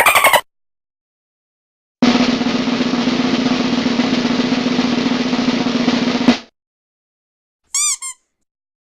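Snare drum roll sound effect, an even, rapid roll lasting about four seconds that ends on a sharp hit. Near the end comes a brief, high, two-part chirping effect.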